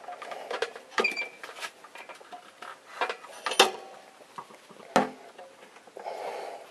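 Scattered metallic clicks and knocks as a motorcycle fork leg is clamped and tightened in a stand, the sharpest about three and a half and five seconds in, with a short rustle near the end.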